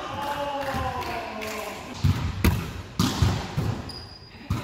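A volleyball rally in a reverberant gym: several sharp smacks of hands and forearms on the ball, starting about two seconds in. A voice is calling out at the start, and there is a brief high squeak near the end.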